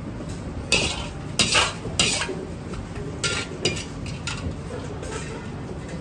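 Utensils scraping and clinking against a plate of fried noodles, in about six short strokes clustered in the first four and a half seconds, over a steady low background hum.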